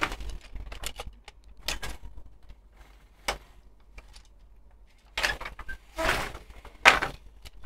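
Wooden horizontal floor loom being worked by hand: a run of separate wooden knocks and clacks from the shuttle, treadles and beater, irregularly spaced, the loudest two near the end as the beater is pulled against the weft.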